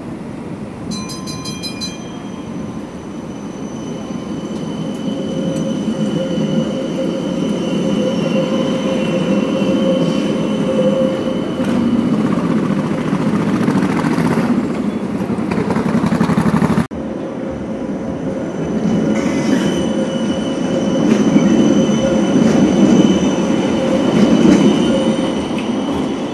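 Helsinki trams running on street track, a steady low rumble of the wheels on the rails with a thin high squeal from the wheels on curved track. The sound breaks off abruptly about 17 seconds in and picks up again with another tram passing close.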